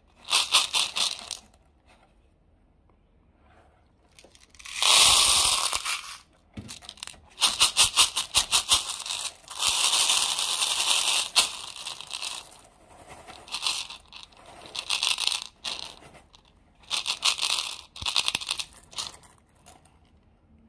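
Thin clear plastic crinkling and crackling in repeated bursts as a clump of Orbeez water beads is pressed and rubbed against it. There is a run of fast clicks in the middle, after a quiet pause of about two seconds near the start.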